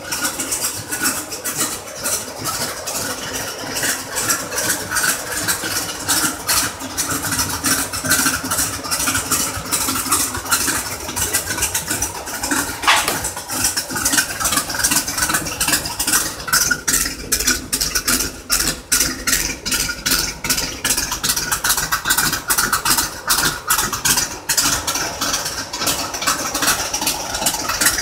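Chevrolet Corvette C3's V8 engine idling steadily, with a dense, rapid pulsing.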